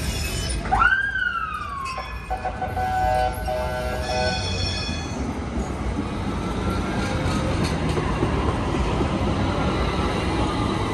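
Tram running on the line, with a steady rumble and a faint electric whine that rises and then falls in pitch. About a second in there is a short siren-like whoop that swoops up and falls away, followed by a couple of short chime tones.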